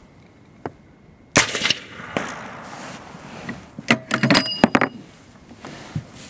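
Suppressed Anzio 20mm rifle firing a single subsonic round about a second and a half in: one short sharp report that trails off. Around four seconds in there is a quick run of metallic clicks as the bolt is worked, and the spent brass case clinks and rings as it lands.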